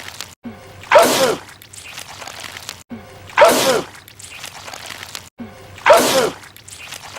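A man's loud sneeze repeated three times, about two and a half seconds apart, as an identical looped film clip; each one starts suddenly, with a vocal tone falling in pitch and a spray of hiss.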